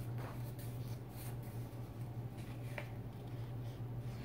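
Paper pages of a workbook being turned by hand: several soft rustles and swishes, over a steady low hum.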